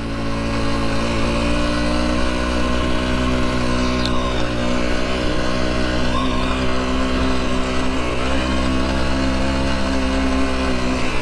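Motorcycle engine running at a steady pace while riding, its pitch dipping briefly about eight seconds in.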